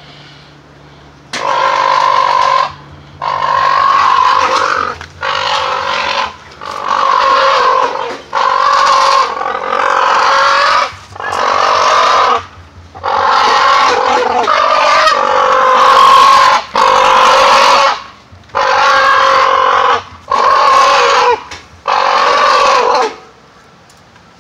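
Crowned cranes calling loudly: about fourteen long honking calls in quick succession, each lasting one to two seconds. These are the parent birds defending their newly hatched chick.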